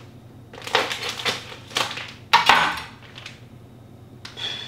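Plastic bag rustling and crinkling as it is cut open with a kitchen knife, with a sharp knock about halfway through, then a short sniff near the end.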